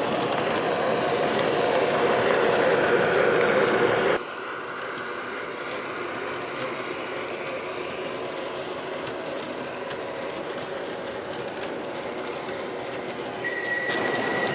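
MTH R40 model subway train running on its layout, its DCS sound system playing subway running sounds: loud until about four seconds in, then cutting abruptly to a quieter steady running noise. A steady high tone begins near the end.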